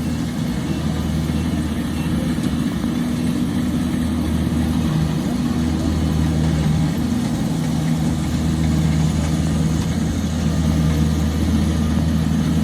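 A large engine running steadily with a low, even hum; its pitch dips slightly about five seconds in.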